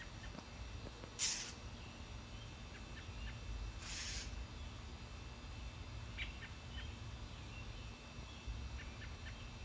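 A small bird giving short, high chirps in a few scattered groups, with two brief loud hissing swishes about a second and four seconds in.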